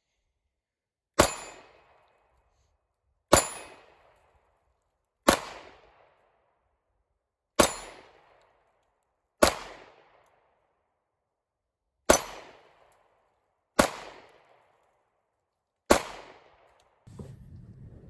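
Eight single pistol shots fired at a slow, steady pace, about two seconds apart, each a sharp crack with a short echo dying away.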